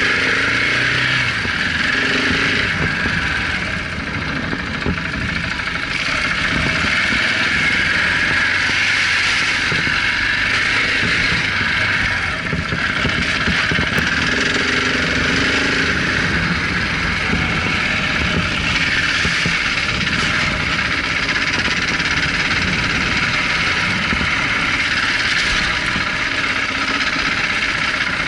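KTM 690 Enduro R's single-cylinder engine running steadily as the bike rides along a dirt track, mixed with a constant rush of wind noise on the microphone. The level dips briefly about four seconds in.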